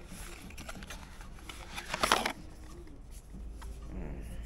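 Rustling and scraping as a cardboard box is handled and a clear plastic jar is taken out of it, with one louder brief rustle about two seconds in.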